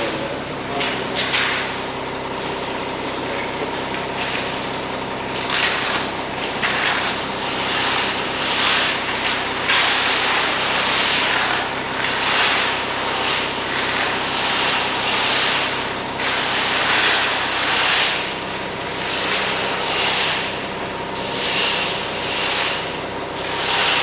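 A concrete mixer truck's engine running steadily, with repeated rough swishing and scraping sounds rising and falling over it about every second.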